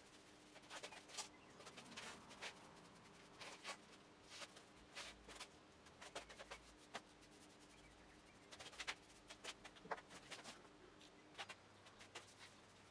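Faint, irregular scratchy strokes of a paintbrush being worked over a steel frame, with a faint steady hum underneath.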